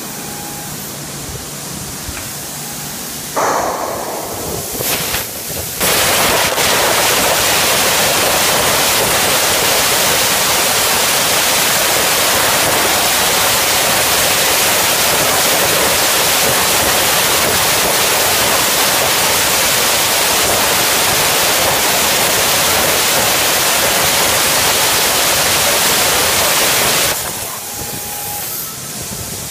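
CNC plasma cutter cutting steel plate. After a quieter few seconds the arc comes on with an uneven burst, then settles into a loud steady hiss that cuts off near the end.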